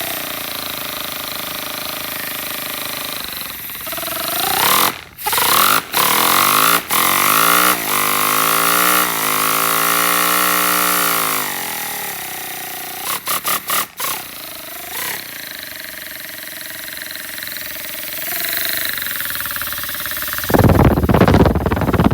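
Homemade single-cylinder paper air engine running on compressed air, its fast exhaust note gliding up and down in pitch as its speed changes, broken by a few brief cut-offs. Near the end there is a loud rush of air lasting about two seconds.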